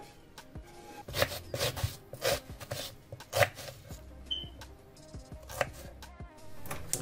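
Kitchen knife cutting peeled garlic cloves on a wooden chopping board: a run of sharp, irregular knocks of the blade against the board in the first half, and one more a little before the end.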